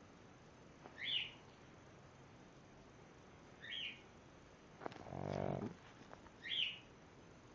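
A sleeping pug snoring. It gives a short high whistle with each breath, three times about 2.7 seconds apart, and one deeper, longer snore about five seconds in.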